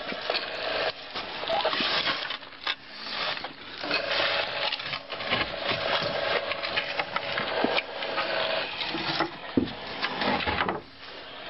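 Motor winch lowering a load down the shaft: a steady motor whine for about four seconds in the middle, over constant clatter and knocks of rope and gear against the timber frame.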